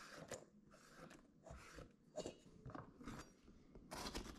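Faint kitchen prep sounds: small crackles as chopped onion is brushed off a wooden cutting board into a stainless steel bowl. Near the end comes louder crunching as a chef's knife slices through a red bell pepper on the board.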